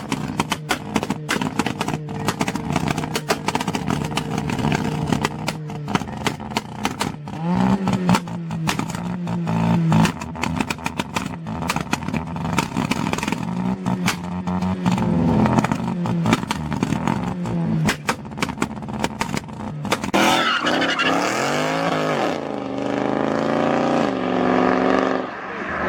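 Modified cars' engines running and being revved, the engine note rising and falling several times. The loudest, highest revving comes in the last few seconds.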